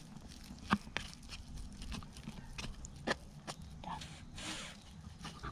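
Stick stirring thick silicone mixed with green paint in a plastic tub: faint, irregular sticky clicks and scrapes.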